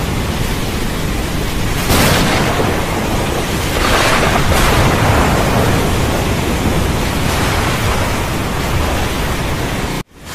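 Loud, steady rushing noise, swelling about two and four seconds in and cutting off suddenly near the end.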